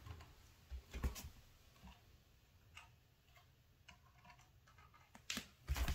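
Faint, scattered taps and clicks: bare feet stepping on a wooden floor, and an Eachine E520S quadcopter drone being handled and picked up, with its motors not running.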